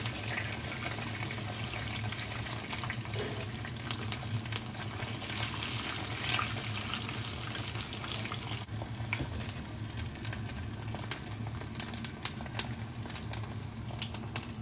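Tempura-battered green peppers deep-frying in oil in a frying pan: a steady sizzle full of small crackles and pops, over a steady low hum.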